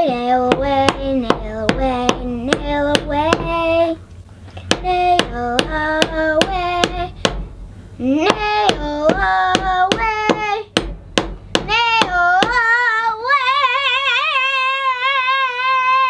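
Claw hammer driving small nails into a wooden birdhouse roof, quick repeated strikes of about two to three a second with short pauses, while a high voice sings along in rising and falling notes. The hammering stops a little past two-thirds in and the voice holds one long wavering note.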